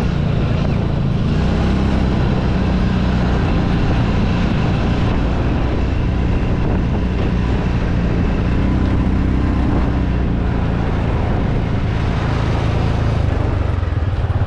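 Polaris RZR side-by-side's engine running steadily as it drives along a dirt track, under a constant rush of wind and tyre noise.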